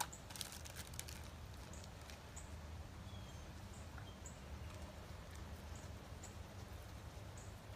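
Quiet room tone with a steady low hum, a few faint clicks in the first second, and scattered faint, brief high-pitched ticks.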